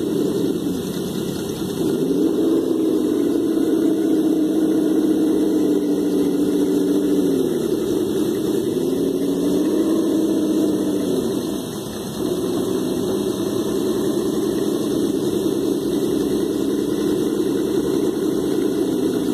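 Electric motor and gearbox of a Traxxas TRX-4 Defender 1/10 RC crawler whining as it is driven slowly over a ramp and plank. The pitch rises and falls with the throttle and dips twice, about eight and about twelve seconds in.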